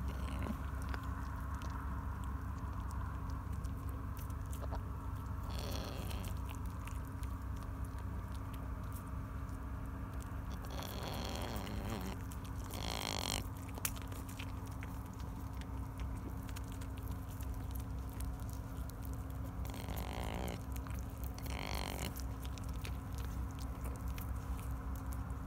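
White-tailed deer fawn chewing and mouthing a hand-held banana close to the microphone: many small wet clicks, with a few short rushes of noise, over a steady low rumble.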